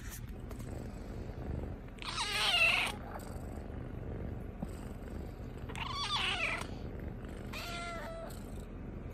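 Kitten purring steadily, with three short, wavering mews over the purr about two, six and eight seconds in; the first mew is the loudest.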